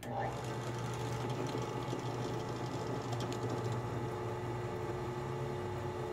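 Benchtop drill press running steadily with a hum and a faint whine while its bit drills a deep pilot hole into the edge of an aluminum plate.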